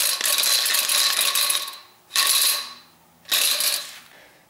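Worn Kawasaki KDX200 front fork tube tilted back and forth, its internals clattering inside in three bursts, the first about two seconds long and the next two short. The fork has no oil in it and its seals are shot.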